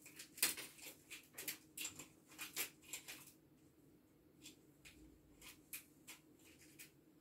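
Pruning shears snipping through a thick bunch of dried St John's wort stems, with the dry crackle of the herbs. A quick run of crisp snips over about three seconds is followed by slower, scattered snips.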